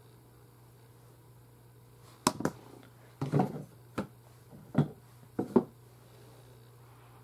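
A handful of sharp clicks and knocks, some doubled and one a short rattle, as makeup items and brushes are picked up and set down on a table, starting about two seconds in. A faint steady low hum runs underneath.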